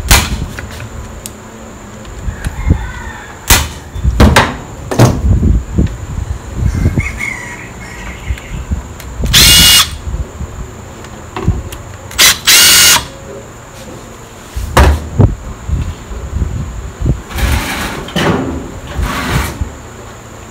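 A power driver runs in short bursts, backing out the Phillips screws of a Yamaha 125ZR clutch cover, with two longer loud runs about nine and twelve seconds in. Clicks and knocks of tools and screws on metal come in between.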